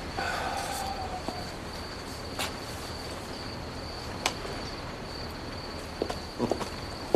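Crickets chirping in one steady, high trill, with a few sharp clicks and, near the end, several short soft knocks.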